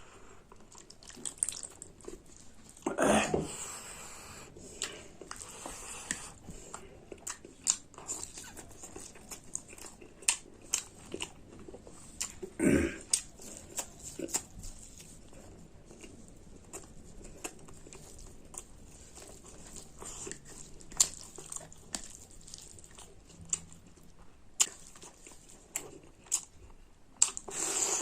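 Close-up eating sounds: a person chewing and biting into pork curry and rice, with many short wet clicks and crunches and two louder, longer mouth sounds, about three seconds in and near the middle.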